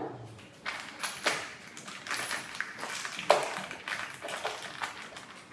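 Scattered knocks and taps, with rustling, from the parts of a carpeted cat tree being handled and fitted together. One sharper knock comes about three seconds in.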